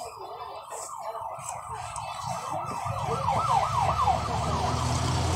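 An emergency vehicle's siren in a fast yelp, its pitch rising and falling about four times a second and growing louder, with a vehicle engine's rumble coming up about three seconds in.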